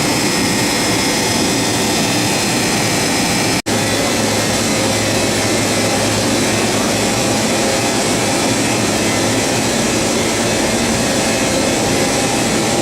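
Steady machine hum and whir of a LeBlond Makino MC1813 CNC horizontal machining center standing powered up, its auxiliary units running, with factory noise around it. The sound drops out for an instant about three and a half seconds in.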